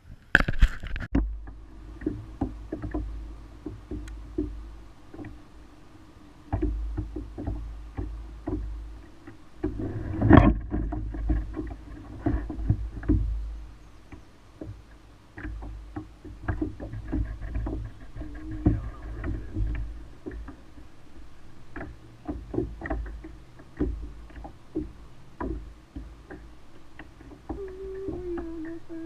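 Sounds aboard a kayak: scattered knocks and clicks against the hull over a patchy low rumble, with one loud knock about ten seconds in.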